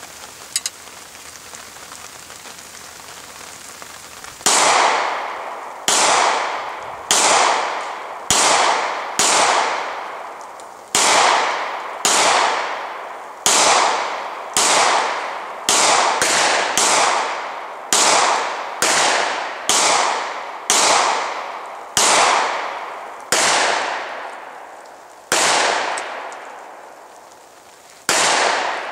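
Pistol fired in slow single shots, about twenty of them roughly a second apart, starting about four seconds in, each shot trailing off in an echo.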